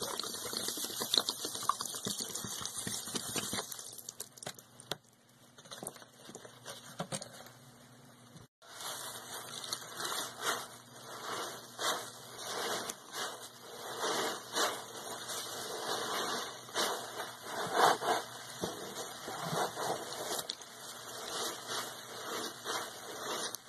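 Liquid pine cleaner poured from two bottles, splashing onto foam sponges. After a cut about nine seconds in, gloved hands squeeze and knead the soaked foam sponges: irregular wet squelching and crackling of foam and suds, some squeezes louder than others.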